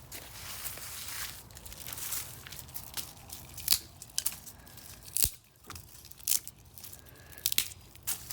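Wooden tree branches being bent and snapped: crackling and splintering, then a run of sharp, loud cracks from about three and a half seconds in.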